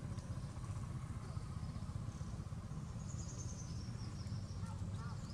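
Steady low outdoor background rumble, with a faint run of high chirps about three seconds in and a few small squeaks near the end.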